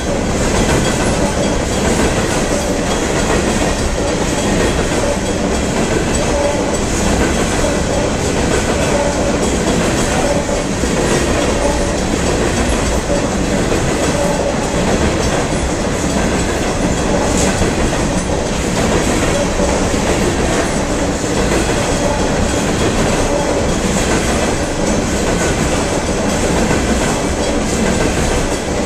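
Coal train's open-top hopper cars rolling past, a steady loud rumble and rattle of wheels on rail.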